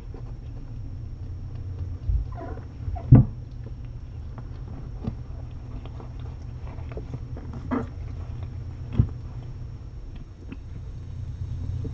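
Mother cat and kittens moving about in a fleece-lined kennel: several dull thumps and knocks, the loudest about three seconds in, over a steady low hum.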